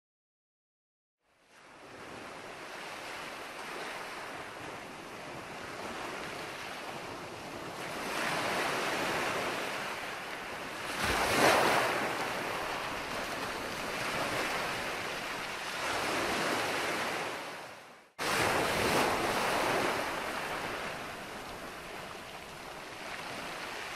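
A rushing noise that swells and fades every few seconds. It starts after about a second of silence and cuts out briefly about three-quarters of the way through before resuming.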